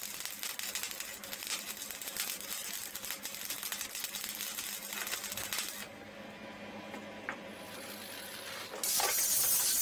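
Arc welding crackling and sputtering as a hole in a cast-iron vise body is filled with weld; the arc stops about six seconds in. Near the end a louder steady hiss starts.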